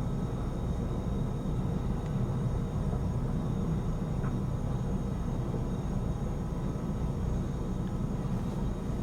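Jet airliner engines running steadily: a continuous low rumble with a faint high whine held on a few steady pitches.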